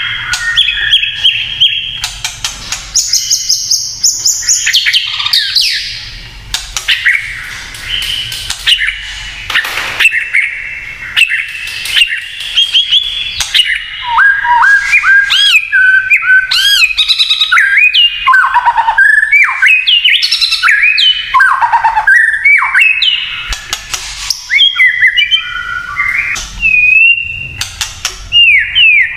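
White-rumped shama singing a long, varied song of clear whistled phrases that glide up and down. Runs of rapid, dry crackling notes (the 'kretekan') are mixed in, the aggressive kind of song that stirs rival shamas to answer.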